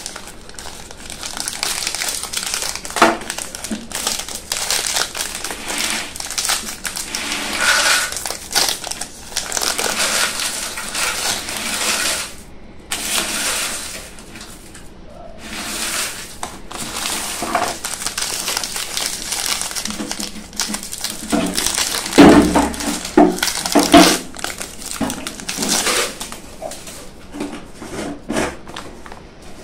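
Plastic biscuit wrappers of Dark Fantasy Choco Fills crinkling and rustling in the hands as a packet is handled and opened, with many sharp crackles; the loudest crackling comes about three-quarters of the way through.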